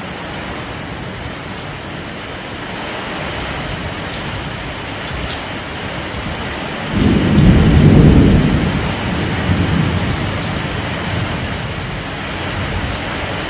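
Heavy rain pouring steadily, with a low rumble of thunder swelling up about halfway through and dying away over two or three seconds.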